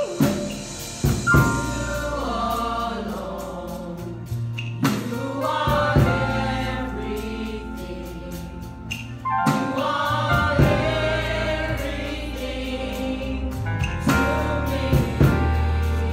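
A small gospel choir of women singing with instrumental backing: a steady bass line and a sharp drum hit every few seconds.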